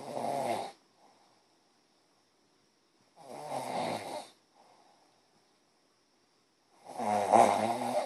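Snoring: three rattling snores about three and a half seconds apart, at the start, around four seconds in and near the end, the last the loudest. A faint steady high-pitched hum runs underneath.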